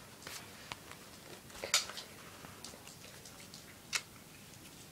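Scattered light clicks and knocks of paintball gear being handled, a hopper being fitted to the marker's clamping feed neck, with two sharper clicks, one just under two seconds in and one about four seconds in.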